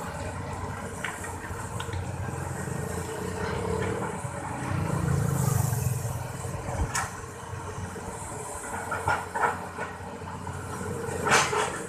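Excavator's engine running steadily, with the rumble swelling now and then as it works, and several sharp clanks, the loudest near the end.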